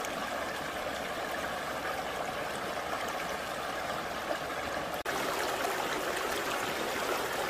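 Shallow river water rushing steadily over rocks, a continuous even wash that briefly cuts out about five seconds in.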